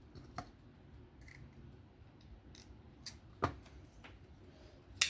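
A few separate sharp clicks from a Civivi Elementum folding knife being handled and worked after reassembly, with one louder click about three and a half seconds in and another at the very end.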